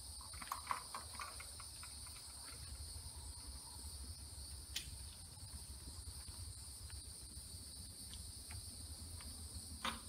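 Faint clicks and rustles of lineman's pliers and copper house wires being twisted together at a plastic switch box, a few sharp clicks about a second in, near the middle and near the end, over a steady high-pitched background whine.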